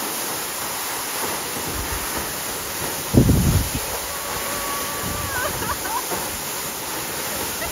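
Napuru Waterfall's falling water rushing as a steady, even hiss. About three seconds in, a brief gust of wind buffets the microphone.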